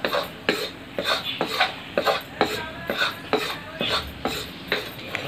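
Metal spatula scraping and knocking against a steel kadhai as thick ground-turmeric paste is stirred in hot linseed oil, about two strokes a second.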